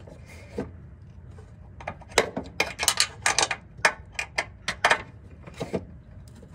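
Ratchet wrench clicking in short, irregular runs, starting about two seconds in, as a leaking air-line fitting on a rear air suspension bag is tightened.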